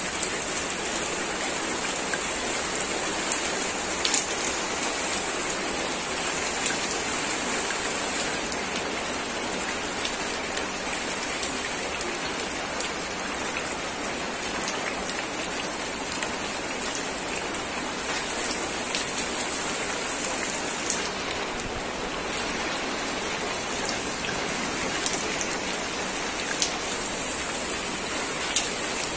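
Heavy rain falling steadily onto flooded ground and puddles, a continuous hiss dotted with scattered sharper drop taps.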